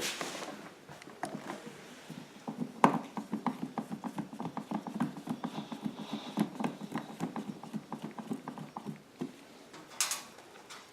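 Ratcheting screwdriver clicking rapidly, about five clicks a second, as screws are driven back into the generator's plastic cover. It starts with a sharp click about three seconds in and stops about nine seconds in; there are knocks of handling near the start and near the end.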